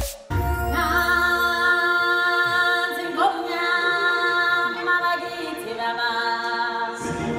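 Choir of voices singing long held notes together, with little or no instrumental backing, beginning just after a short gap in which the preceding electronic music cuts off.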